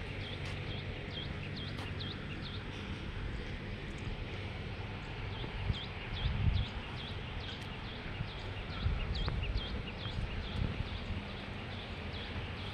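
Small birds chirping: quick high chirps, several a second, coming in runs, over a low rumble with a couple of dull thumps about six and nine seconds in.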